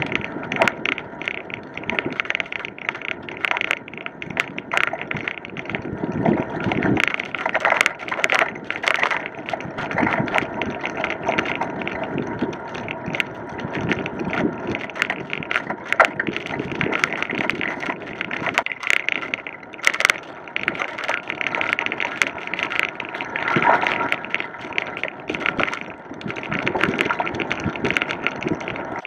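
Bicycle rolling along a dirt and gravel trail: tyres crunching over the surface, with constant small rattles and knocks from the bike as it rides over the bumps.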